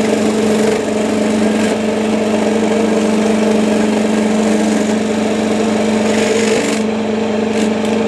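Belt-driven arrowroot grinding machine running steadily with a constant motor hum while it grinds the rhizomes to pulp, with a brief rise in grinding hiss about six seconds in.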